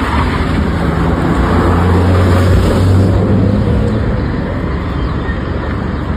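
A motor vehicle's engine running close by with a low hum, growing louder and then easing off, over general road noise.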